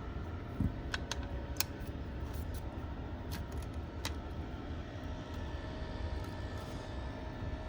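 A handful of small sharp clicks and ticks from prying at an iPhone's bottom edge with a repair tool, working the display past its stripped pentalobe screws, over a steady low hum. The clicks fall in the first half, then stop.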